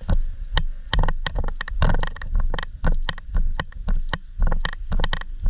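Quick footsteps on a concrete floor, about two to three a second, with carried gear clattering at each step.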